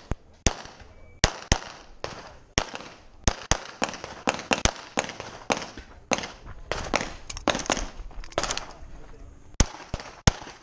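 Rapid handgun fire on a shooting range: about thirty sharp shots in irregular strings of two to four a second, some loud and close, others fainter, each with a short echo.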